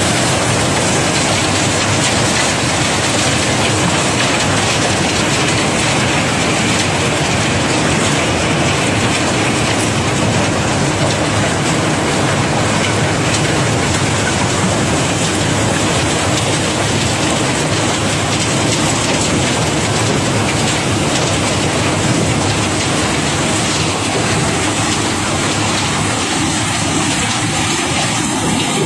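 Cobblestones pouring off a barge during unloading: a steady, dense clatter of many stones knocking together.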